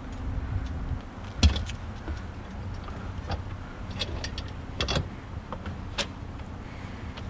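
Knocks and clatter of a child's bicycle being set into a pickup truck bed, the loudest knock about a second and a half in and a run of smaller knocks and clicks around four to six seconds, over a low steady hum.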